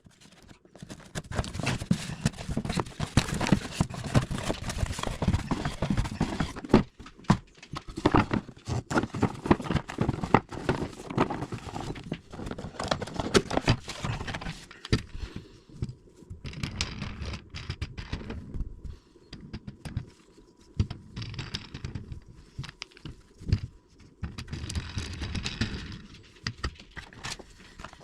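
A box and its packaging handled and opened: an irregular run of knocks, clicks and rustling, with short pauses now and then.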